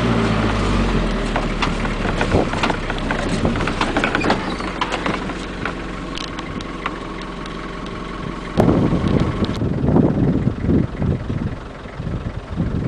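Safari vehicle's engine idling with a steady low hum, then wind buffeting the microphone in uneven gusts over the last few seconds.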